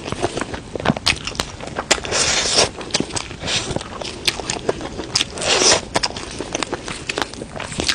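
A person eating Sichuan peppercorn chicken close to the microphone, biting and chewing, with many sharp clicks and a few short noisy smacking bursts.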